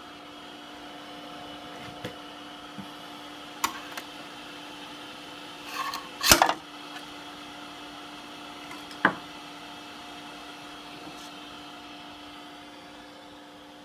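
Steady mechanical hum with a few sharp knocks, and a louder clatter about six seconds in.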